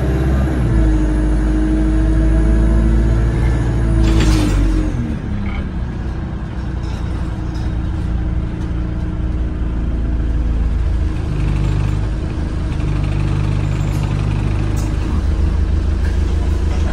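Diesel engine and running noise of an Alexander Dennis Enviro200 single-deck bus heard from inside the saloon, the engine note shifting as it drives. About four seconds in there is a short hiss of air from the brakes, after which the engine settles lower and runs steadily.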